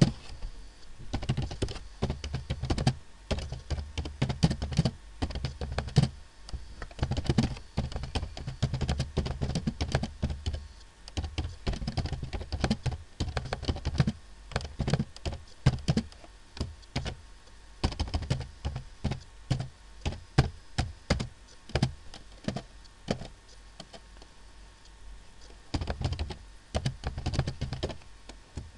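Typing on a computer keyboard: a fast, irregular run of key clicks with dull thuds under them, easing off for a few seconds about three-quarters of the way through before picking up again.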